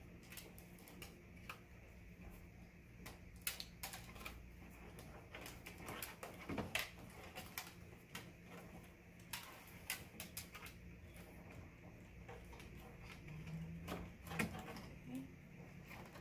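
Irregular light clicks and knocks of a ring light's tripod stand being handled and its parts fitted together.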